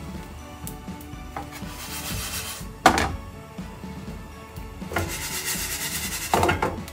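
Coriander seeds dry-roasting in a non-stick frying pan. They rasp and slide across the pan as it is shaken, loudest about three seconds in and again near the end, with a few small pops from the hot seeds. Background music plays throughout.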